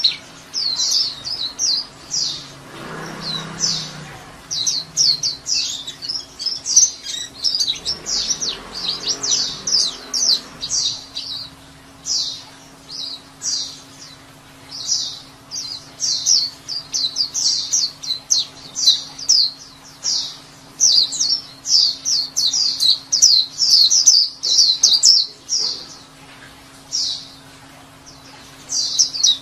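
White-eye (pleci) chattering in quick, high chirps that come in dense runs with brief pauses: the continuous 'ngekek' song of a white-eye in full voice.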